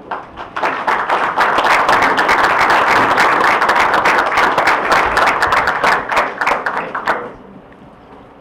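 Audience applauding, with dense clapping that fades out about seven seconds in.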